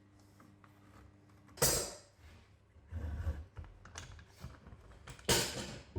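Clamps being set on freshly glued pine boards: a run of small clicks and knocks, with two short, louder noisy sounds, one about one and a half seconds in and a longer one near the end.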